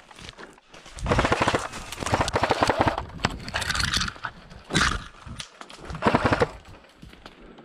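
Airsoft electric rifle firing on full auto: a long burst of about two seconds, then three shorter bursts of rapid clicking shots.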